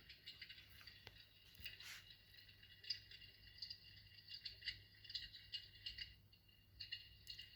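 Faint, irregular crackling and ticking, typical of an electric fireplace's built-in log-crackle sound effect.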